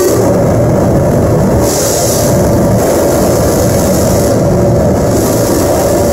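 Live harsh noise music played on electronics at the table: a loud, dense wall of distorted rumble and crackle with a high hiss that swells and fades every couple of seconds.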